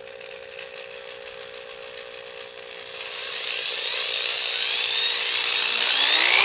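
DeWalt DW511 corded hammer drill running under no load, a steady low-speed whine at first. About three seconds in it gets louder and its pitch rises as the variable-speed trigger is squeezed further and the motor spins up.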